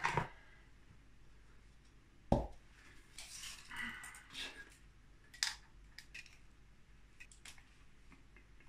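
A hard plastic PVC pipe cap knocked down once onto a plywood tabletop, then rustling handling and a few light clicks and rattles of a tape measure being pulled out and let back.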